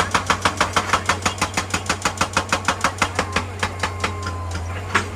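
Excavator-mounted hydraulic breaker hammering rock in a rapid, even run of about six or seven blows a second, stopping about four seconds in, with one more single blow near the end. The excavator's diesel engine hums steadily underneath.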